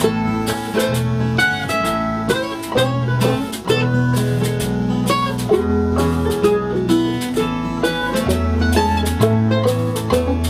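Instrumental break of an old-time country song played by a small acoustic string band: strummed acoustic guitar, banjo and mandolin picking, over a walking bass line, with some lead notes sliding in pitch.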